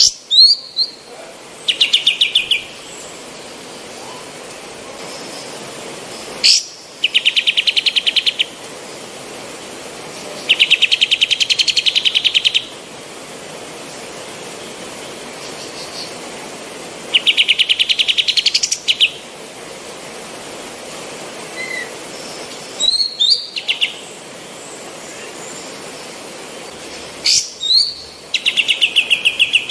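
Female kapas tembak songbird singing in repeated phrases: a sharp rising whistle, then a fast rattling trill of many quick notes lasting one to two seconds. The phrases come every few seconds over a steady background hiss.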